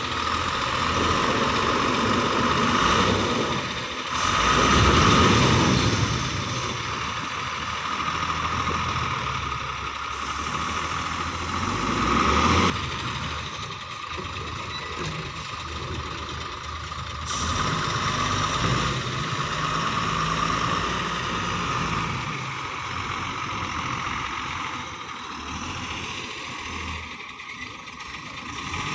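JCB 3DX Plus backhoe loader's diesel engine working under load, the revs rising and falling, loudest about five seconds in and dropping abruptly a little before halfway, over a steady high whine.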